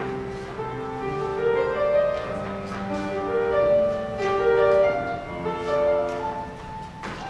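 Instrumental music from a theatre pit orchestra, a melody moving in held notes over accompaniment, with no singing.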